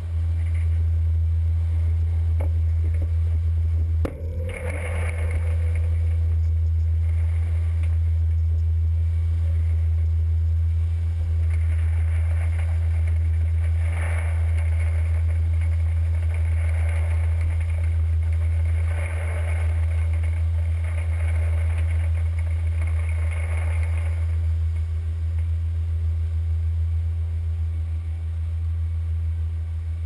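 Steady low drone of a PMC pea viner and its tractor running. From about four seconds in until about twenty-four seconds in, shelled green peas pour from the viner's discharge elevator into the metal trailer with an uneven rushing rattle.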